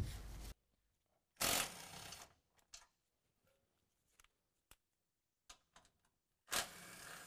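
Cordless impact driver with a 12 mm socket running bolts out of a truck's jounce-bumper mount in two short bursts, about a second and a half in and again near the end, with a few light clicks of the tool and parts being handled in between.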